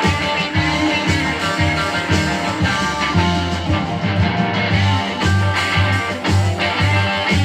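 Rock music with guitar over a steady bass line, played through loudspeakers driven by a repaired GAS Son of Ampzilla solid-state power amplifier and picked up by a microphone in the room.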